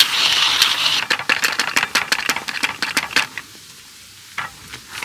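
Pork belly sizzling and spattering on a cauldron-lid griddle. A steady rushing hiss gives way about a second in to a quick run of sharp pops, which thins out to a few scattered pops after about three seconds.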